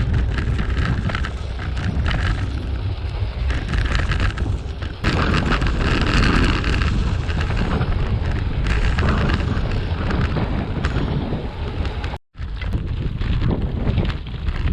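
Heavy wind buffeting the microphone of a camera riding along on a moving gravel bike, a loud, steady rumble. It cuts out for an instant about twelve seconds in.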